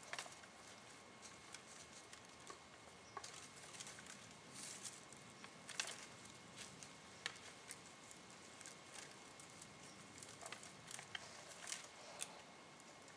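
Whitetail buck rubbing his antlers on a tulip poplar stump sprout: faint, irregular clicks and scrapes of antler against the stems, with a few sharper ticks.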